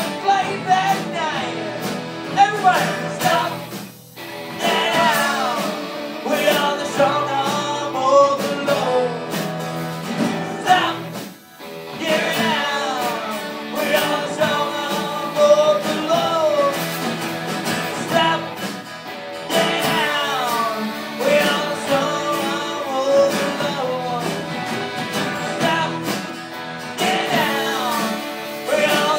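Live band playing a song with sung vocals over acoustic and electric guitars, accordion and drums. It drops out briefly twice, once about 4 seconds in and again near the middle.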